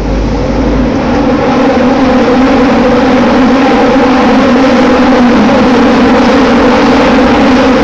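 Toei Oedo Line linear-motor subway train running through a tunnel, heard from inside the car: steady rumbling running noise with a low hum, growing louder over the first couple of seconds and then holding.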